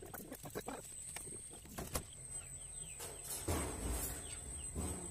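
Light clicks and rattles of wire mesh being handled against a metal cage frame, with a few faint bird chirps in the middle and a thin, steady high whine throughout.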